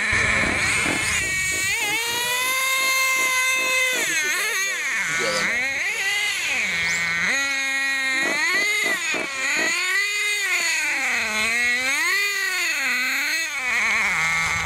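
Small engine of a radio-controlled model buggy revving up and down with the throttle: a high buzzing pitch that climbs, holds, then falls back to a low steady idle several times.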